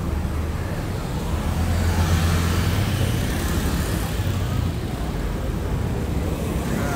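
Street traffic: a motor vehicle's engine passes close by with road noise, loudest about two seconds in, then easing.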